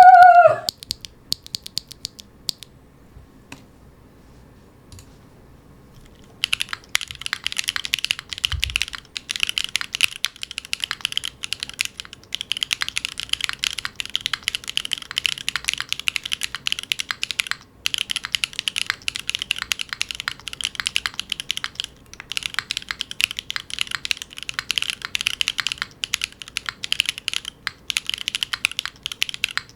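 Typing on a Neo70 mechanical keyboard with factory-lubed Gateron Everfree Dark One linear switches: a few scattered keystrokes, then fast, continuous typing from about six seconds in. A brief falling tone sounds at the very start.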